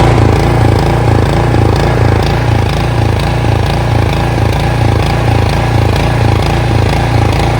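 Snowblower's small gasoline engine running steadily and loudly at close range, with an even low throb.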